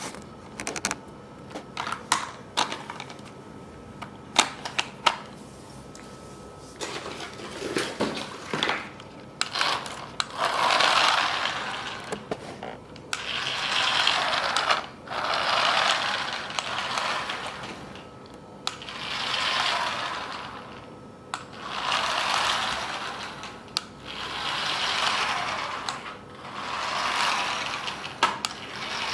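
Clicks and knocks of plastic being handled, then a toy remote control car's small electric motor and gearbox whirring in repeated short runs, each a second or two long, starting and stopping about every three seconds.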